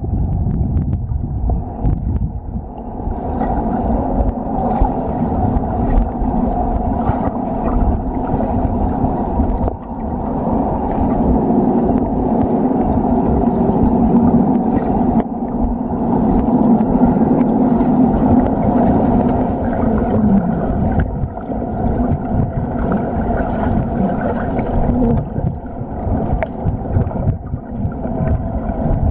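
Swimming-pool sound recorded underwater: a muffled churning rumble of moving water from a swimmer's stroke and kick, over a steady droning hum.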